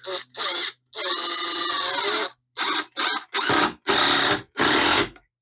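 Cordless impact driver sending a 60 mm Torx-head screw straight into timber without a pilot hole, run in trigger bursts: a couple of short ones, one long run of over a second, then about five short bursts.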